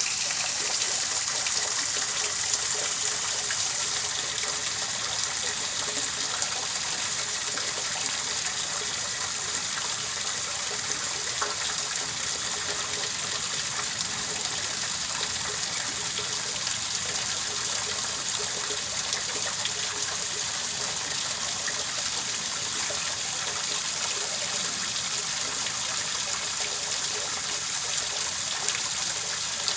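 Steady, unbroken rush of running water, hissy and even, used as white noise for sleep.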